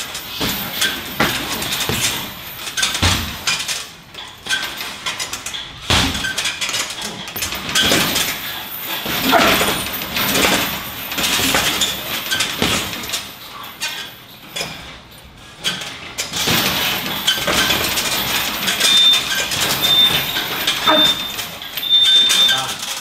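Boxing gloves landing on a water-filled teardrop heavy bag in irregular runs of punches, each hit a sharp slap.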